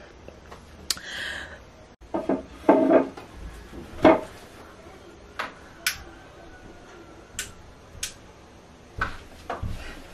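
Scattered clicks, knocks and rustles of an over-the-door shoe organizer being hung on a door, its hooks knocking against the top of the door.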